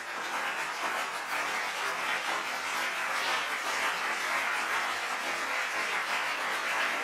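Steady rushing hiss with no clear pitch, strongest in the upper-middle range, growing slightly louder over the first second.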